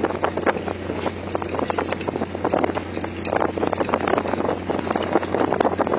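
Squid-jigging boat's deck machinery: a steady low engine drone with irregular clicking, clattering and splashing from the jigging reels and their lines.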